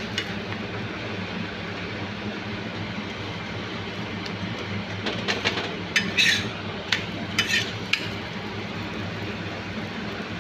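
Stuffed paratha frying in oil on a tawa, a steady sizzle over a low hum, with a few short scrapes and clinks of a steel spatula against the pan between about five and eight seconds in.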